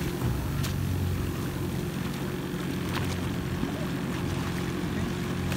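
Small speedboat's engine running steadily under way, with water rushing and splashing along the hull.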